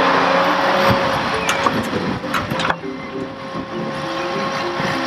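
Excavator engine running steadily, with a few sharp metallic clanks between about one and three seconds in.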